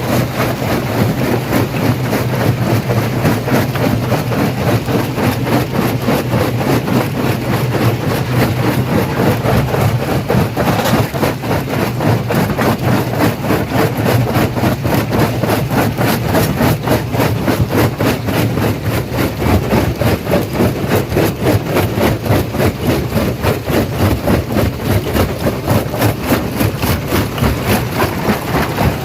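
Industrial stone crusher running and crushing rocks: a fast, steady rhythm of knocks and crunching over the constant low hum of the machine.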